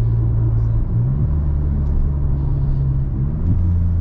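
Volkswagen T-Cross 1.0 TSI three-cylinder turbo engine running with its exhaust open after the catalytic converter, giving a loud, low drone. The pitch of the drone shifts about a second in and again near the end.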